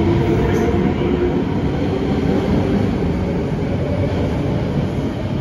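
SMRT C151 metro train (Kawasaki–Kinki Sharyo build) pulling away from the station, a steady loud hum of the train running on the rails that eases slightly as it draws off.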